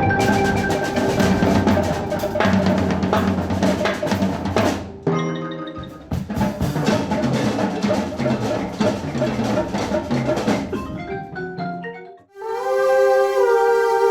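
Music: dense drumming with snare and mallet percussion such as marimba or xylophone. The drumming briefly drops out about five seconds in and picks up again, then stops near the end, giving way to held melodic notes.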